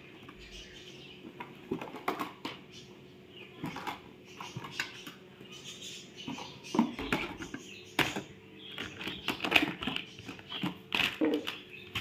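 Rigid clear plastic food storage containers and their slotted drain plates clicking and clattering against each other as they are handled and stacked, in irregular knocks that come thicker in the last few seconds.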